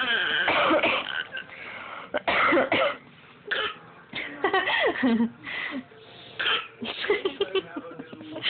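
A woman and a baby coughing in turn, the baby imitating each of her coughs with a little cough of its own. The coughs come as a string of short bursts with brief gaps between them.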